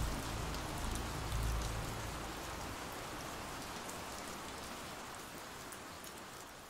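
Ambient recording of steady rainfall, slowly fading out. A low steady hum sits under it for the first two seconds.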